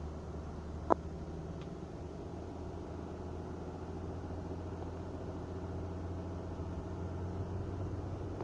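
Car running and rolling slowly over a snow-covered road, heard from inside the cabin as a steady low engine hum and tyre noise. A single sharp click about a second in, with a fainter one just after.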